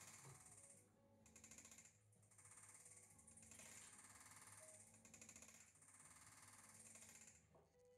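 Faint, rapid rattling scrape of a digital caliper's sliding jaw being run open and shut, in stretches of one to two seconds with brief pauses between.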